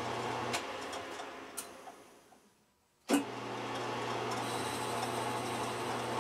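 Small metal lathe running with a steady hum while the tool cuts the spinning part. The sound fades away to near silence about two and a half seconds in, then returns abruptly with a sharp click just after three seconds and runs steadily again.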